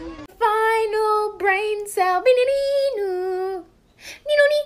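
A high female voice singing a short melody of long held notes, one sliding down, with little or no backing; it breaks off a little after halfway and comes back briefly near the end.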